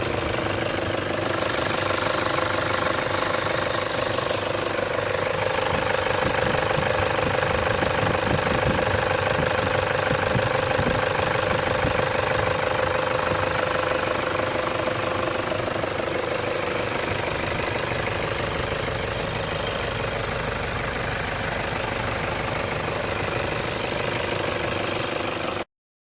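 Toyota Hilux 2KD four-cylinder turbodiesel running steadily, with a high-pitched whistle a couple of seconds in that lasts about three seconds. The owner suspects the whistle comes from the air intake.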